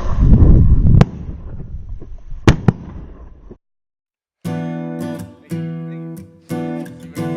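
Wind and handling rumble on the microphone, then two shotgun shots fired in quick succession about two and a half seconds in. After a second of silence, strummed acoustic guitar music starts about four seconds in.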